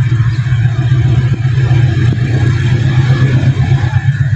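Diesel locomotive of an approaching passenger train, its engine running with a steady, slightly pulsing low drone.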